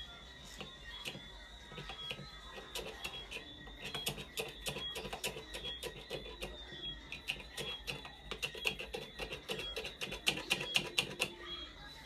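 Rapid, irregular hard clicks and taps, growing denser and louder through the middle and stopping shortly before the end, much like small hard parts being handled or worked with a hand tool.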